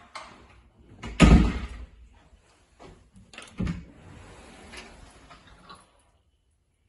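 Interior door being handled and opened: a loud bump about a second in and a smaller one a couple of seconds later, with softer rustling between.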